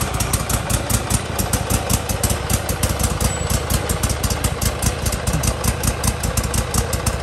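Loud engine running with a rapid, even pulse of about seven beats a second. It cuts in and out abruptly.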